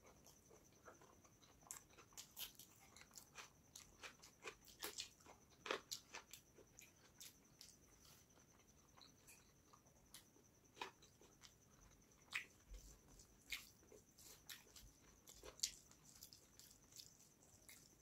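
Close-miked eating sounds: a person chewing mouthfuls of rice and fish curry and mixing the rice by hand on a steel plate, with irregular wet clicks and smacks.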